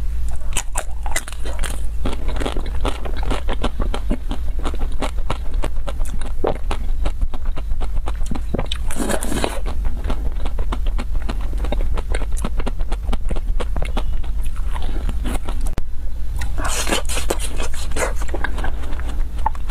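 Close-miked biting and chewing of frozen ice cream bars: a dense run of crisp crunches and mouth sounds, with louder bites about nine seconds in and again near the end. A steady low hum runs underneath.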